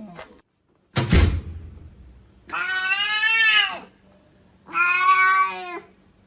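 A sharp thump about a second in, then a cat giving two long meows, the first rising and falling in pitch, the second held steadier.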